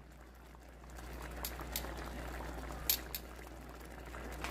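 Thin lemon-caper piccata sauce bubbling at a boil in a skillet around chicken cutlets, reducing. It grows louder about a second in, with a few sharp pops.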